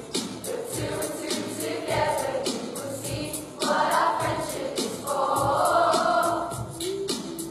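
A children's choir singing together, with accompaniment keeping a steady beat.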